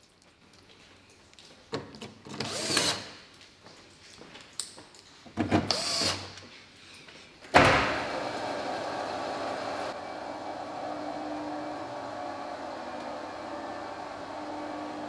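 Cordless drill with a socket running in two short bursts, driving the underbody panel screws back in. About halfway through comes a sharp clunk, then a steady mechanical hum as the two-post car lift lowers the car.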